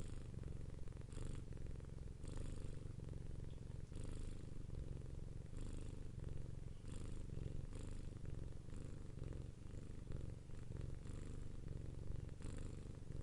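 Domestic cat purring steadily and continuously, with a low rumble and a hissier stretch roughly every one to one and a half seconds as the purr cycles.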